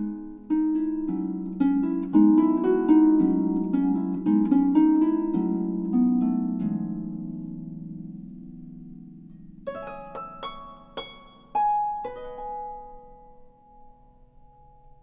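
Background music of plucked string notes: a flowing run of notes in the first half that dies away, then a few sparse, higher single notes.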